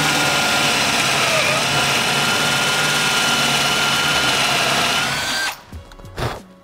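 Handheld power drill boring a 35 mm hinge-cup hole into OSB, its motor running with a steady whine that dips briefly in pitch about a second and a half in as the bit bites. The drill stops about five and a half seconds in, followed by a short knock.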